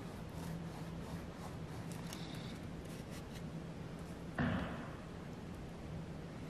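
Faint brush strokes as a medium paintbrush spreads silver paint across a canvas, over a steady low hum. About four and a half seconds in, a brief thump is the loudest sound.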